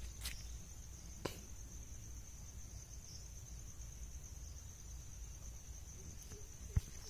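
Steady high-pitched insect drone, like a cricket, with a few sharp clicks of footsteps on dry ground, the loudest near the end.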